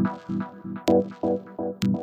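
Electronic intro music with a steady beat: a pulsing synth pattern of about four notes a second, with a sharp percussive hit about once a second.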